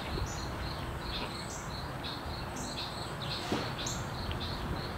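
Small birds chirping in short, high notes several times a second, over a steady outdoor background, with a single faint click about three and a half seconds in.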